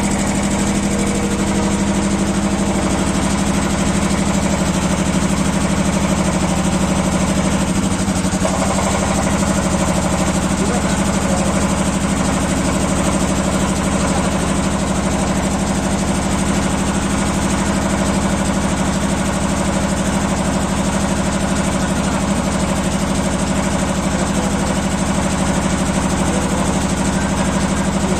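Jiangdong JD330 35 hp diesel engine of a home-built 40 kVA generator set running steadily.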